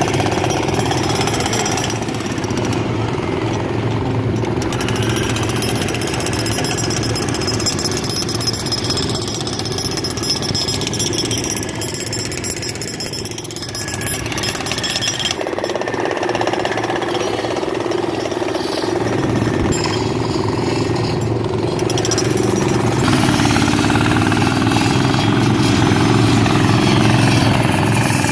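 A motorised machine running steadily and loudly, with its sound shifting slightly about halfway through and again near the end.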